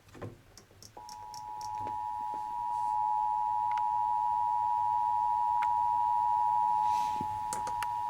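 Emergency Alert System attention signal from a radio broadcast: the steady two-tone EAS alert, two close pitches sounding together, starting about a second in and held without change. It marks the start of a required weekly test on the Lower Hudson Valley EAS.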